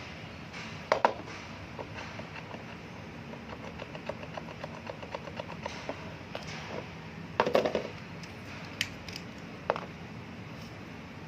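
Metal clinks and knocks of hand tools working on a bicycle's pedal and crank, with a run of light, even ticks in the middle and a louder cluster of clinks near the end, over a steady low hum.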